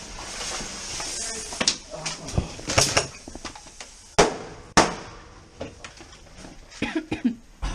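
Airsoft pyrotechnic grenade: its lit fuse fizzes for about a second and a half, then about four seconds in come two sharp bangs roughly half a second apart, with lighter knocks after.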